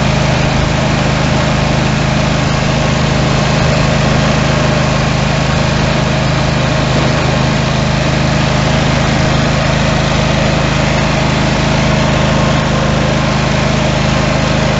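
Simplicity garden tractor's engine running steadily under way, heard from the driver's seat.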